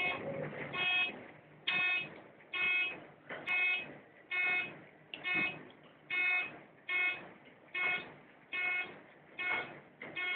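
Elevator floor-passing beep sounding once for each floor on a fast descent: a short pitched tone repeating evenly about once every 0.85 seconds.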